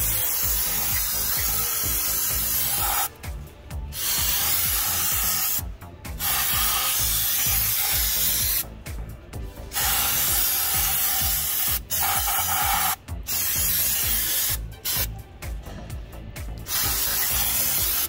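Pressurised cleaning spray hissing in long blasts of two to three seconds, broken by brief pauses, with a run of short stop-start bursts near the end. It is spraying down the forklift drive unit's mating surface to clean off old gasket sealer.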